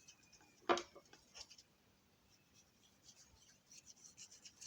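Hands rolling a small lump of putty into a ball: faint, soft rubbing and scratching, with one louder sharp tap a little under a second in.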